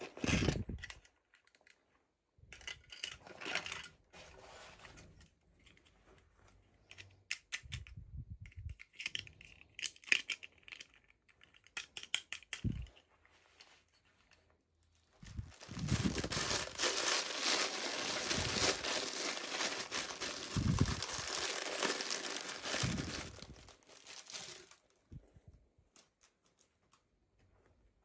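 Toy packaging being handled and opened: scattered clicks and short crinkles, then about halfway through a continuous stretch of crinkling and tearing that lasts some nine seconds.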